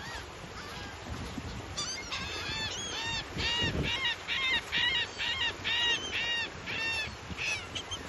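Seabirds in a beach flock of gulls and terns calling: a rapid series of repeated harsh, arching calls, about three a second, starting about two seconds in and stopping near the end, over a steady wash of surf and wind.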